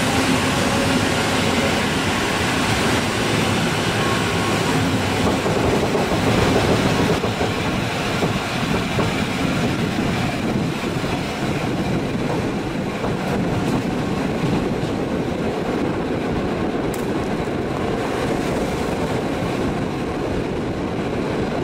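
Passenger train rolling along, heard from an open carriage window: steady wheel-on-rail running noise.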